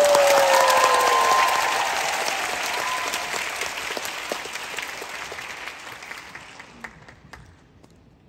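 Concert audience applauding, with a voice or two calling out in the first second; the clapping is loudest at the start and dies away over about seven seconds.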